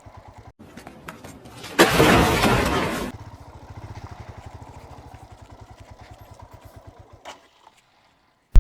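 Single-cylinder motorcycle engine idling with a steady low putter. A loud rush of noise lasts about a second, starting about two seconds in. The engine sound fades out about seven seconds in.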